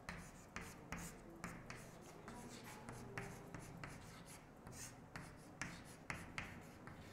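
Chalk writing on a chalkboard: faint, irregular scratches and taps of the chalk stick as figures and letters are written.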